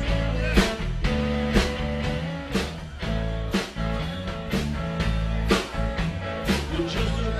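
Live rock band playing: electric guitar and bass over a drum kit, with a steady beat of drum hits about twice a second.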